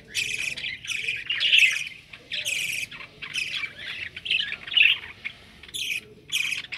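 Budgerigars chattering: short, harsh squawks and chirps in quick succession.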